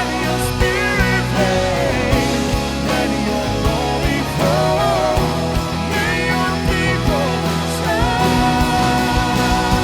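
Live worship band playing a rock-style song, with a wavering melody line over a steady bass and rhythm backing.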